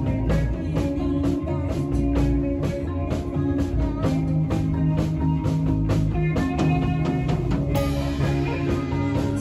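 Live rock band playing: electric guitar and drum kit over a steady beat, with a cymbal crash washing over the mix about eight seconds in.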